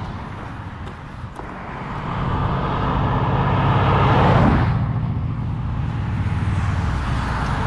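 A Ford Mustang passing close by: tyre and engine noise swells to a peak about four and a half seconds in and drops in pitch as the car goes by, with steady road noise after it.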